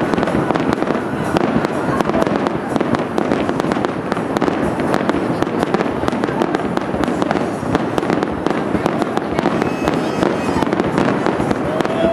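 Fireworks shells bursting in rapid succession, a dense, continuous crackle of sharp reports with no pause.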